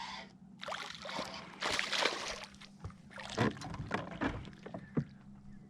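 Water splashing and sloshing as a hooked largemouth-size bass thrashes at the surface beside the boat, with a few sharp clicks and knocks.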